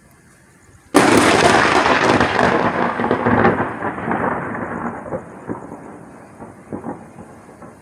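Thunder from a nearby lightning strike: a sudden loud crack about a second in, crackling and then rolling away in rumbles over several seconds.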